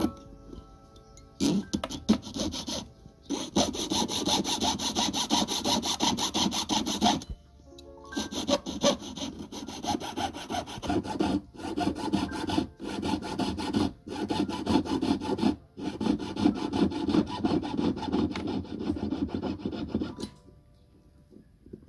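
A jeweller's piercing saw cuts through a metal ring setting in quick, rasping back-and-forth strokes. It starts about a second and a half in, pauses briefly twice, and stops shortly before the end.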